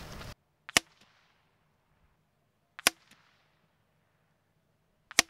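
Three shots from a suppressed Savage Mark II FV-SR .22 LR bolt-action rifle firing CCI standard-velocity rounds, about two seconds apart, each a short sharp crack.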